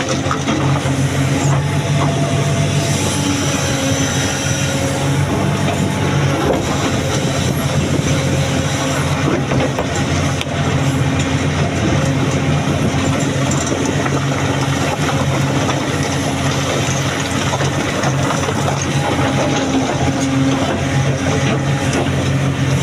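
Heavy diesel engine of a working excavator running steadily, with a faint whine above it that shifts in pitch.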